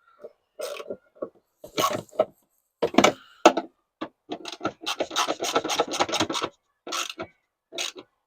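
Ratchet with a Torx T27 bit nipping up the rear light cluster's bolts just enough to squeeze the gasket: short bursts of ratchet clicking and metal scraping, with a fast run of clicks around the middle.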